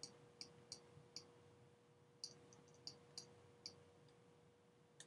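Faint, sharp clicks of a pen tapping on a writing tablet, about a dozen in two clusters, over a faint steady hum.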